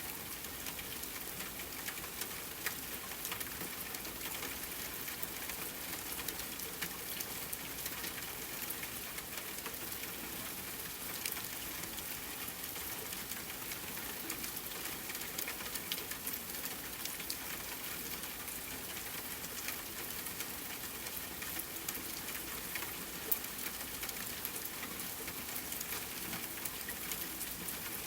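Steady rain falling on foliage, a dense hiss of many fine drop patters, even throughout.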